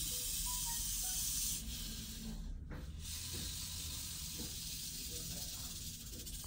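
Rattlesnake buzzing its tail rattle: a steady high hiss, loudest for the first second and a half, dropping away for a moment near the three-second mark, then going on more quietly.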